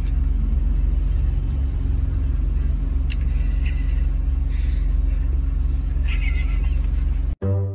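Steady low engine and road rumble inside a moving car's cabin. It cuts off suddenly near the end, where plucked string music begins.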